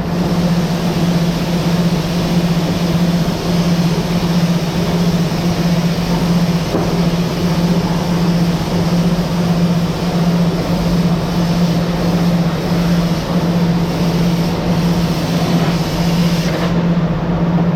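Factory machinery running steadily and loudly: a constant low hum under a broad rushing noise. The highest hiss drops away shortly before the end.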